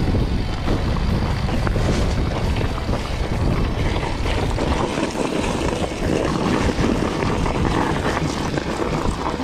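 Wind buffeting the action camera's microphone, mixed with mountain bike tyre and trail noise on a rocky dirt descent, loud and steady throughout.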